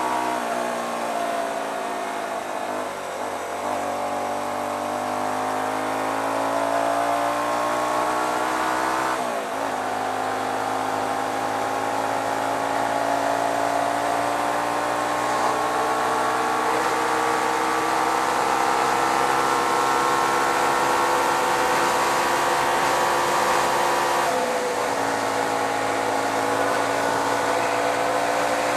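Hyosung GT125R's 125 cc V-twin engine under way. Its note falls as the bike slows, then climbs with the revs, dropping sharply at an upshift about nine seconds in and again at a second upshift a few seconds before the end. Wind rushes over the microphone throughout.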